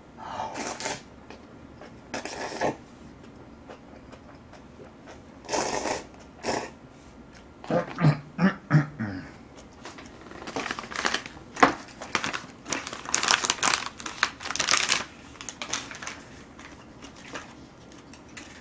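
A person slurping and chewing instant noodles with a wet, noisy mouth, in repeated short bursts separated by quiet gaps. The bursts are busiest in the second half.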